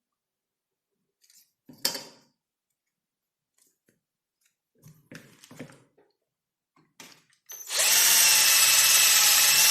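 A small electric drill running steadily for about three seconds from about three-quarters of the way in, boring a mounting hole. Before it come a single knock and a few light clicks of handling.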